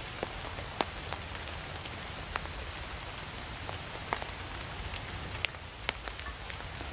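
Campfire crackling: a steady hiss with sharp pops and ticks scattered irregularly, a couple a second.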